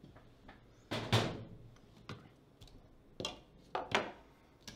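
Hard objects handled on a desk as a blue plastic bowling layout tool is picked up: a few short knocks and clatters, the loudest about a second in.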